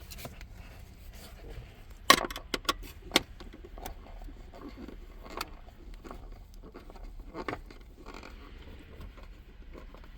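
Scattered light clicks and scrapes of a Torx screwdriver backing screws out of a plastic dash panel, with a cluster of sharp clicks about two to three seconds in.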